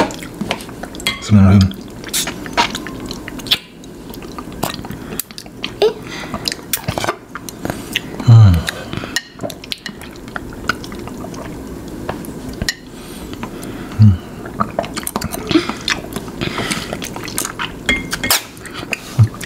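Metal straws and a metal spoon clinking and scraping against a glass bowl of jelly drink, with sipping through the straws. Three short low hums are heard in between.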